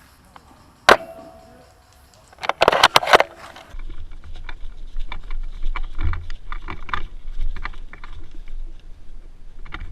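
A spring-powered VSR-10 airsoft sniper rifle fires once: a sharp snap with a brief ringing after it. About one and a half seconds later comes a quick run of loud clacks as the bolt is cycled, then low rumbling and small clicks of handling noise.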